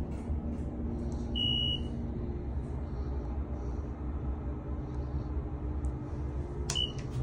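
Elevator car in motion with a steady low hum. Two high electronic beeps from the car: a half-second one about a second and a half in, and a brief one near the end.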